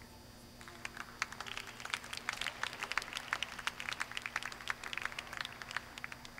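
Scattered applause from spectators, the individual hand claps distinct, greeting the end of a hunter round. It starts about half a second in and stops abruptly just before the end.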